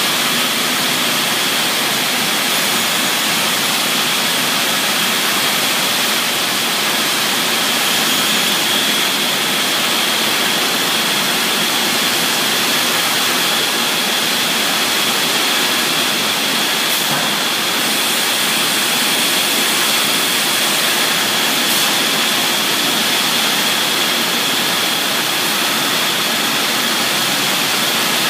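Routech Accord 30 FX CNC machining centre routing wood: a loud, steady rushing noise with a thin high whine from the spindle that holds constant throughout.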